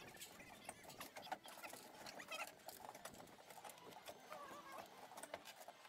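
Manual chain hoist being worked by hand, its chain rattling and clicking in a quick, irregular series of small metallic clicks.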